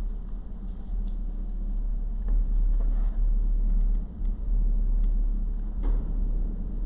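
Steady low rumble that swells and dips, with a faint hum and a few soft clicks.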